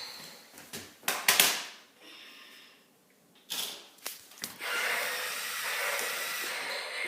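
Hard plastic toy parts being handled: a few sharp clicks and knocks about a second in and again a few seconds later, followed by a steady hissing noise lasting a couple of seconds.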